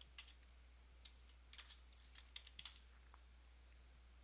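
Faint computer keyboard keystrokes: a dozen or so quick, irregular taps as a short word is typed.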